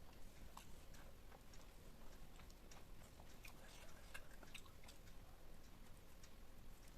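Close-miked chewing of food: faint, irregular mouth clicks, several a second.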